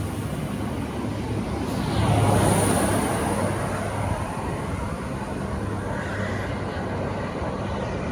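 V/Line VLocity diesel railcar set running past as it departs, engine hum and rolling noise. It swells to its loudest about two seconds in, then eases to a steady run.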